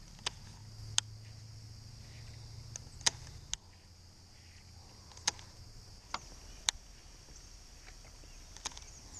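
Scattered sharp clicks from handling a baitcasting rod and reel, about eight in all. Under them runs a steady high insect buzz, and a low hum stops about three and a half seconds in.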